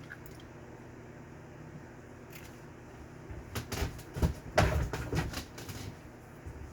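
A quick run of clicks and knocks from kitchen items being handled on a counter, starting about halfway through, with the loudest knock near the middle.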